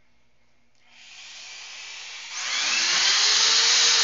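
Electric drill boring a hole through the wall of a plastic pipe. The drill starts about a second in, and about two seconds in it gets much louder as the bit cuts into the plastic, with the motor whine rising and then falling.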